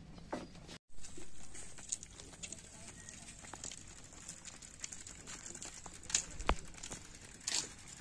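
Rural outdoor ambience: scattered light ticks and taps, with a few brief animal calls.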